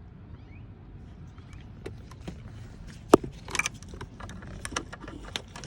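Scattered clicks, knocks and light rattles of a gear shifter assembly and its parts being handled in a car's center console, with one sharp click about three seconds in.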